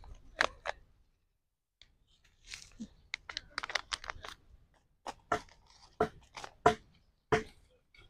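Food being handled during cooking prep: irregular crunching and scratching with sharp taps, the taps coming louder and about twice a second in the second half.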